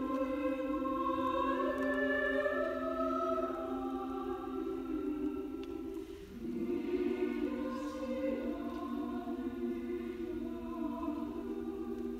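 Women's choir singing long held chords, with a short break between phrases about six seconds in before the voices come back in.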